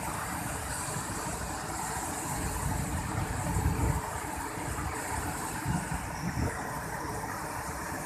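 Waterfall in full flow, a steady rush of falling water, with louder low rumbles about three and a half seconds in and again near six and a half seconds.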